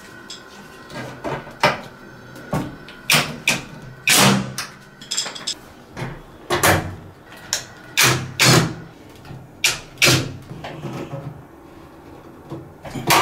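Irregular knocks and clacks, a dozen or more, as parts of an LG Tromm front-loading washing machine are handled and fitted back together by hand.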